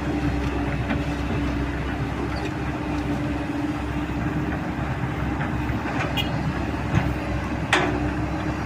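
Heavy diesel engines of tracked hydraulic excavators running steadily, with a steady hum and two sharp metallic clanks near the end.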